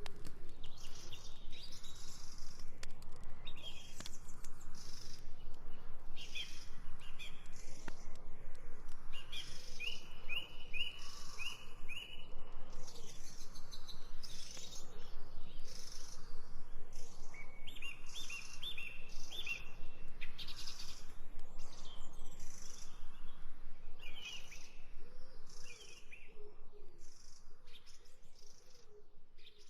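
Wood campfire crackling with many small pops, several a second, while songbirds chirp, with two runs of quick repeated notes. The sound gets quieter near the end.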